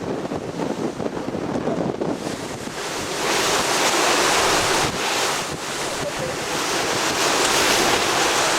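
Wind buffeting the microphone over the rush of sea water around a moving boat. The rush grows louder about three seconds in.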